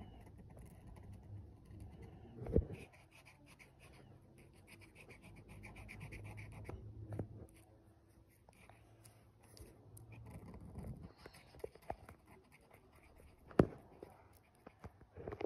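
Black felt-tip marker rubbing over paper in short, soft scratching strokes as a shape is inked in. There are two sharp taps, one about two and a half seconds in and a louder one near the end.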